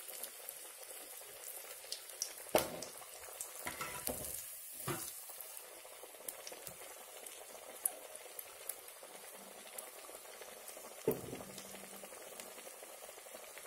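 Banana-flower vadai deep-frying in hot oil in an aluminium kadai: a steady, faint, high crackling sizzle, with three short knocks along the way.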